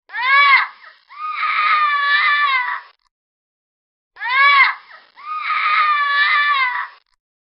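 Parrot calling: a short rising-then-falling cry followed by a longer wavering call, the same pair heard twice.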